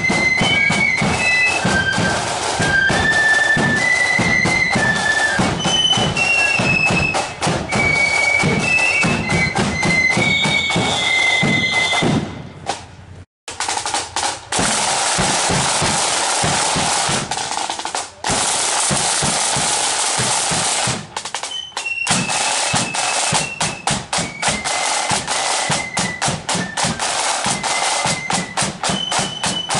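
Marching flute band playing, with a flute melody over snare and bass drums. After a brief break about 13 seconds in, the drums play on their own with snare rolls and bass drum beats. The flutes come back in over the drums about 22 seconds in.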